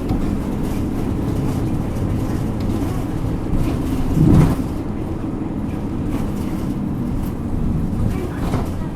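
Isuzu Erga Mio city bus's diesel engine and road noise heard from inside the cabin, a steady low running sound, with a brief louder swell about four seconds in.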